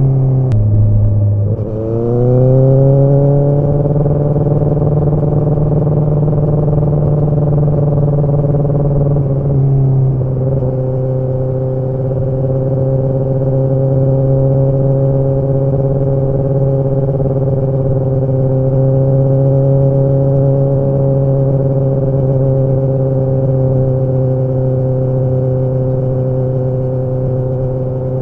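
Kawasaki ZX-10R inline-four running under way, heard from on the bike. The engine note dips and breaks briefly near the start, climbs back within a couple of seconds, steps slightly about ten seconds in, then holds steady.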